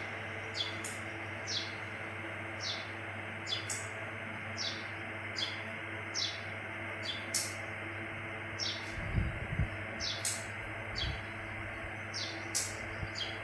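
Small birds chirping: short, high calls that slide downward, repeating about once a second, mixed with briefer, higher notes, over a steady low hum. A few low thuds come about two-thirds of the way through.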